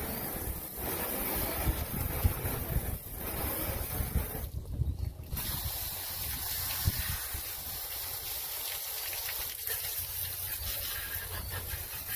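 Garden hose spray nozzle rinsing oven cleaner off a fiberglass boat hull: a steady hiss and splash of water on the hull, breaking off briefly about four and a half seconds in.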